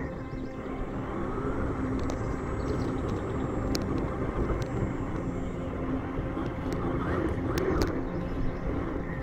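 Axial Ryft RC rock bouncer driving on sand: its electric motor and geared drivetrain give a steady whine over a rough, low rushing noise. There are a few sharp clicks in the middle and near the end.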